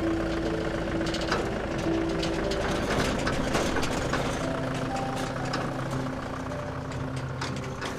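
A vehicle engine idling steadily, with scattered light clicks and knocks.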